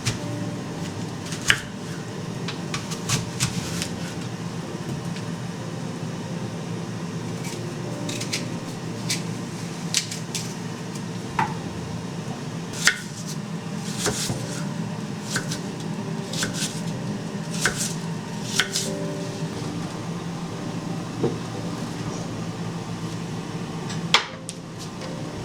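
Kitchen work: scattered clinks and knocks of dishes, cutlery and utensils, over a steady low hum.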